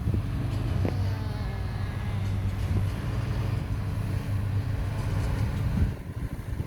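Heavy machine's engine running steadily at a low hum, easing off about six seconds in.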